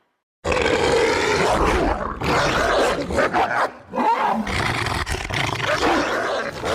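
Werewolf sound effect: long, rough roars and growls, starting about half a second in after a moment of silence and coming in three stretches with short breaks.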